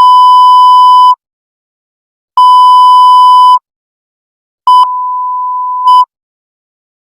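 Loud censor bleep, a single steady mid-pitched tone, sounding three times for about a second each with silence between. The third beep dips quieter in the middle and stops briefly near its start. The speech in the call recording is blanked out beneath it.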